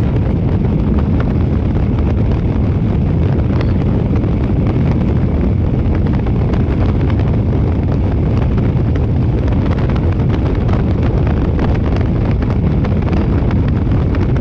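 Fishing boat running over the water with heavy wind on the microphone: a steady low rumble and rush with no let-up.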